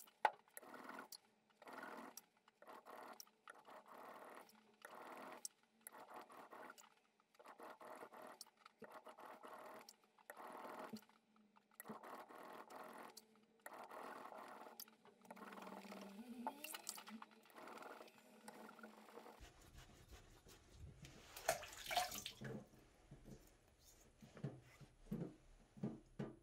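Single-bevel sashimi knife drawn back and forth by hand across a wet finishing whetstone, a soft scraping stroke about once or twice a second. The strokes stop a little after two-thirds of the way through, followed by a few handling knocks.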